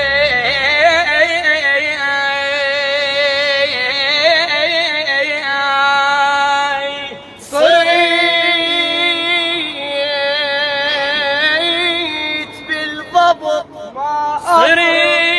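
A young man's high solo voice singing long, ornamented phrases in Iraqi style, with wavering runs and sustained high notes. The singing breaks off for a breath about halfway and stops and starts a few times near the end.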